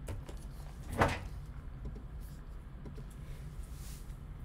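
A single short knock about a second in, like an object set down or handled on a table, over a faint low hum.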